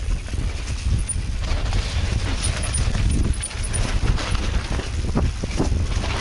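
Mountain bike riding down a leaf-covered forest singletrack: a steady low wind rumble on the microphone, tyres crunching over dry leaves and dirt, and the bike rattling and knocking over roots and stones.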